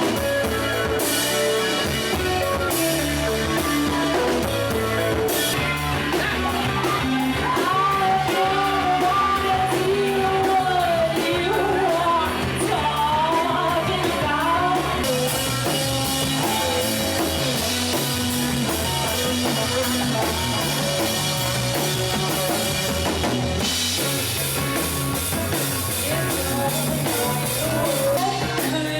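Rock music with a drum kit, guitar and a singing voice, playing continuously.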